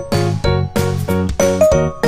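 Background music: a bright, bouncy tune of short chiming notes over a steady beat, about four notes a second.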